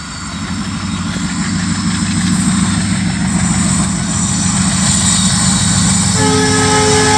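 WDM-3A diesel locomotive with an ALCO 16-cylinder engine approaching under power, its engine rumble growing steadily louder. About six seconds in its horn starts, a steady multi-tone blast held until the end.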